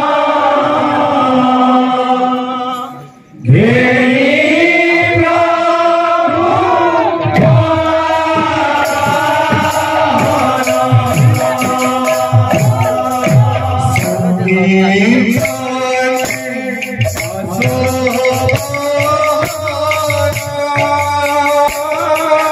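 Male kirtan group chanting a devotional song in long held notes through a microphone. The singing breaks off briefly about three seconds in and resumes, and from about nine seconds rattling cymbal percussion plays along.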